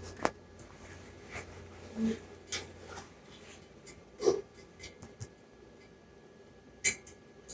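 A few scattered faint clicks and knocks of something being handled, with a low steady hum that fades out about halfway through.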